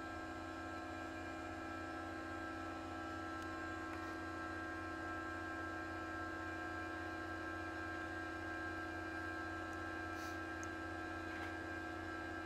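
Steady electrical hum made of several fixed tones, with a couple of faint small ticks near the end.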